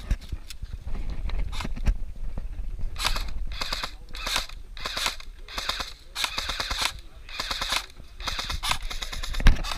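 Airsoft guns firing: a few single shots at first, then from about three seconds in a series of short bursts of rapid fire.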